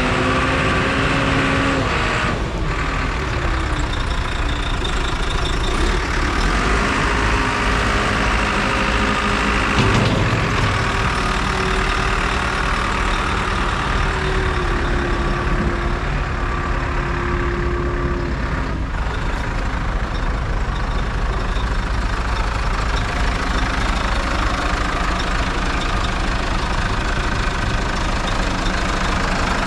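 New Holland LB90B backhoe's diesel engine running steadily, with tones that step up and down in pitch several times as it is worked, and a single knock about ten seconds in.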